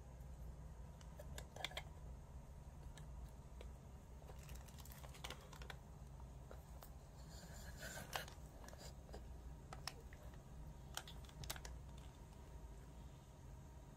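Quiet room tone with a low steady hum and a few faint, scattered light clicks and taps.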